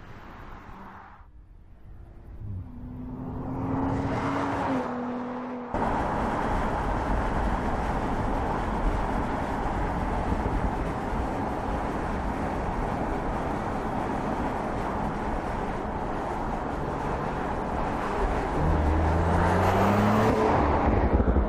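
Audi S5 Sportback's V6 engine on the move. A faint note grows into a rising engine note a few seconds in. About six seconds in, steady road and tyre noise takes over, and near the end the engine rises again as the car passes close.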